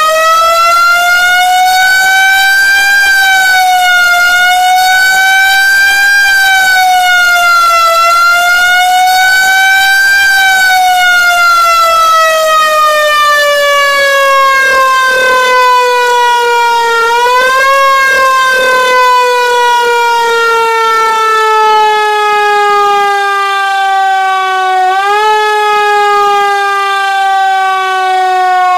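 Federal Signal Q1B electromechanical siren winding up into a wail and swinging up and down in pitch a few times. About a third of the way in it starts coasting down in a long, slow falling tone, kicked back up briefly twice as power is touched on again.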